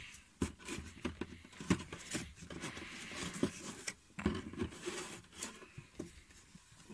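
Paper rustling and crinkling as an old instruction booklet and loose printed sheets are handled, with scattered small taps and clicks at an irregular pace.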